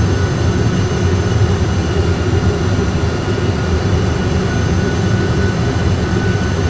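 Airbus A320 flight deck on final approach: a steady low rumble of engines and airflow, with faint steady whines above it.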